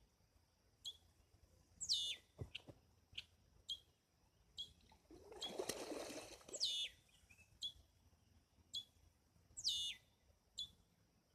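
Bird calls: a falling whistle repeated about every four seconds, with short chirps in between. About halfway through comes a brief rushing noise.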